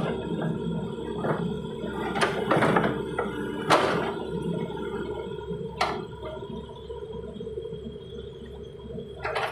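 Mini excavator's engine running steadily, with several sharp metallic knocks as its slipped-off, mud-caked track is worked back on.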